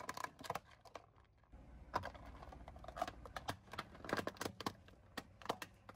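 Thin plastic tubs cracking and snapping under a car tyre: a rapid run of sharp cracks that pauses briefly about a second in, then resumes over a low rumble from the rolling car.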